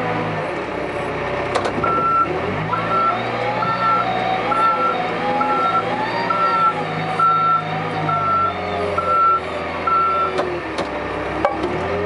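Case 580 backhoe loader's diesel engine running, its pitch shifting up and down, while a reversing alarm beeps steadily about once a second, ten beeps starting about two seconds in and stopping shortly before the end.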